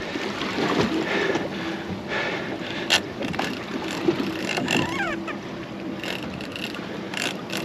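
Twin Yamaha 300 outboard motors running steadily as the boat travels over open water, with wind and water rushing past. A sharp knock comes about three seconds in.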